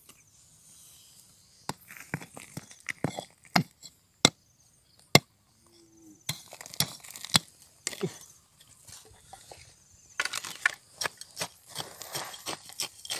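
A small hand pick striking and scraping through stony, gravelly soil, making a string of sharp clinks and knocks of metal on rock. The strikes are spaced out at first and come quickly one after another in the last few seconds.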